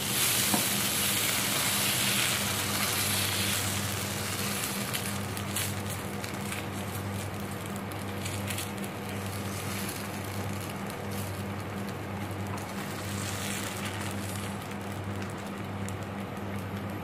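Dosa batter sizzling on a hot nonstick tawa as it is poured and spread in circles with a ladle. The sizzle is loudest in the first few seconds and then settles to a quieter crackle, with light scrapes of the ladle. A low hum from the induction cooktop runs underneath, breaking on and off.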